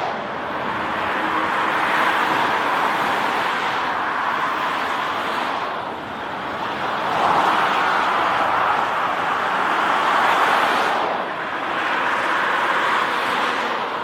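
Lockheed Martin CC-130J-30 Hercules flying low overhead on approach with its gear down, its four Rolls-Royce AE 2100 turboprops giving a steady propeller drone that swells and dips a few times.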